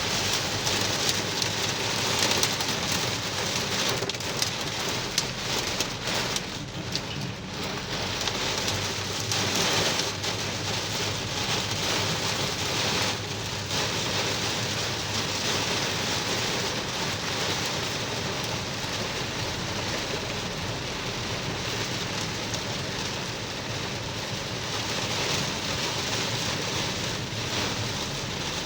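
Heavy rain pouring down steadily, a dense hiss of drops hitting hard surfaces, easing briefly about seven seconds in.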